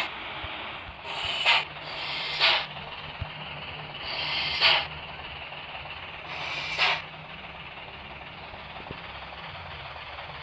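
Bus engine idling with a steady low hum, broken in the first seven seconds by five short hisses that each swell and then cut off sharply.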